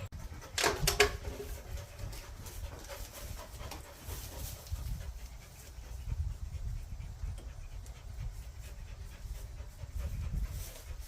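A dog panting, with a short louder burst of sound about a second in.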